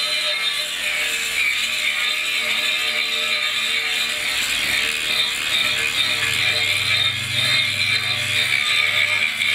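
Cordless 18 V brushless angle grinder running steadily, a continuous high-pitched whine.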